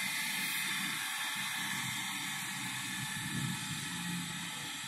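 Steady hiss of background noise, with no distinct event.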